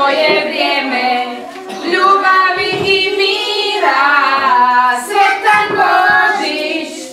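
Young children singing a Christmas song together in Croatian.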